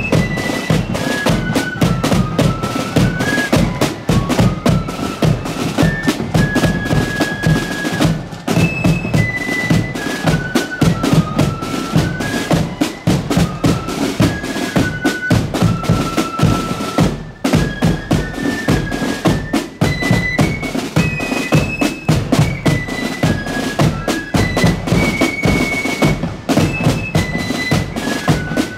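A marching flute band playing a tune: flutes carry a stepping melody over snare drums and a bass drum beating time, the melody breaking off briefly twice.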